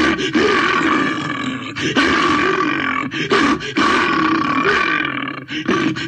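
Postosuchus creature sound effect: a run of deep, rasping growls and roars with short breaks between them.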